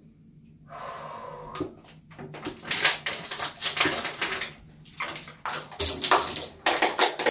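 Water gulped and splashing from a plastic bottle, then spluttering as it spills out, in a run of loud, rough splashes that starts about two and a half seconds in and echoes off the tiles of a small shower cubicle.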